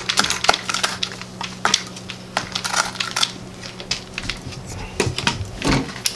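A paddle mixer scraping and knocking in a bucket of freshly mixed wet concrete: an irregular run of sharp clicks and gritty scrapes, with a few heavier knocks near the end as the paddle comes out of the bucket.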